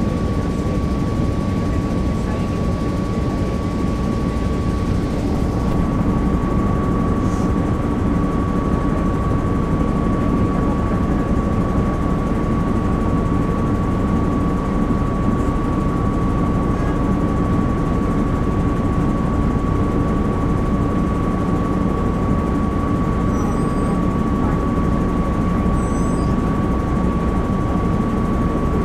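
1996 Nova Bus RTS with a Cummins C8.3 diesel, heard from the rear of the cabin, running steadily. The engine note is mostly low-pitched, with a thin steady whine above it.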